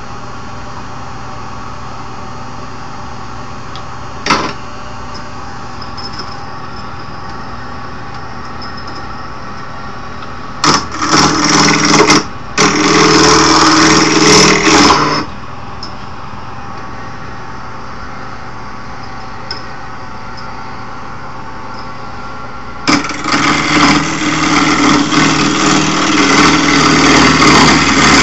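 Wood lathe motor running with a steady hum while a turning tool cuts into the spinning wood blank to round it off, in loud rasping stretches: two short ones about eleven and thirteen seconds in, and a longer one from about twenty-three seconds in. A single sharp knock about four seconds in.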